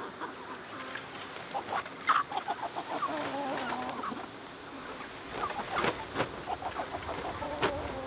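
Flock of chickens clucking: scattered short clucks, a quick run of repeated notes about two seconds in, and a longer wavering call a little after three seconds.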